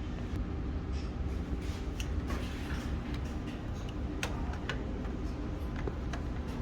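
Kyocera TASKalfa photocopier running: a steady low hum with irregular sharp clicks and ticks.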